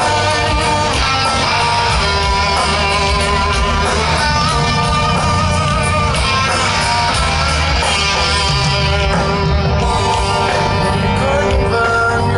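Live heavy-metal band playing the instrumental intro of a song: an electric guitar carries a melody over a steady low bass.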